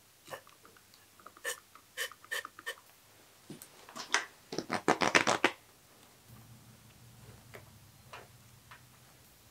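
A few light clicks and taps of handling, then several loud hissing bursts of compressed air from a blow gun, used to inflate a rubber handlebar grip so it slides onto the bar.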